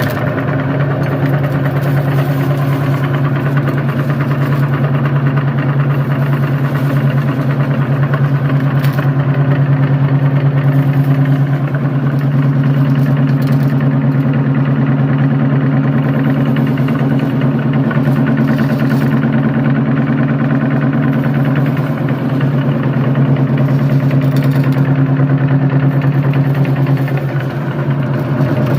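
Electric meat grinder's motor running steadily with a low hum as it grinds candy.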